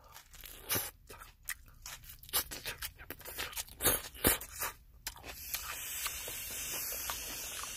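A person chewing a bite of burger with crisp lettuce close to the microphone: wet crunching and mouth clicks. From about five seconds in, a steady rushing hiss comes in under the chewing.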